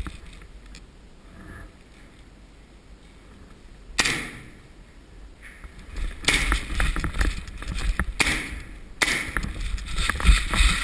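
Hurried footsteps over a debris-covered floor, with clothing and gear rustling against the head-mounted microphone. They start with a sudden scuff about four seconds in and turn louder and more irregular from about six seconds.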